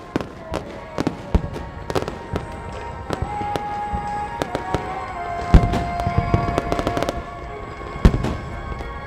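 Fireworks display: a rapid series of sharp bangs and crackles, with two big booms about five and a half and eight seconds in, over music with long held notes.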